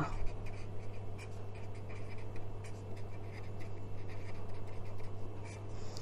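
A marker pen writing on paper: a run of quick, short scratching strokes of handwriting.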